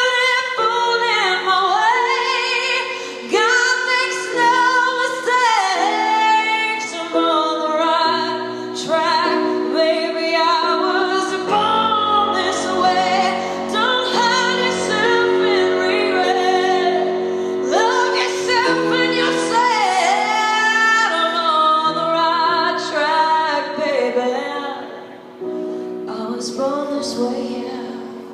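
A woman singing with a wavering vibrato over piano accompaniment.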